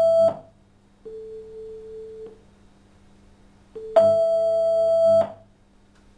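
Synthetic tones over a loudspeaker simulating turn-taking between two whales, sped up sixty times: a higher, louder tone stops just after the start, then a lower tone a perfect fifth below sounds for about a second. Later the lower tone returns and the higher tone comes in over it, the two overlapping for about a second.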